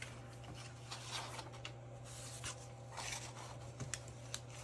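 Paper being handled and rustled, with light scraping, rubbing and small clicks and taps coming irregularly, over a low steady hum.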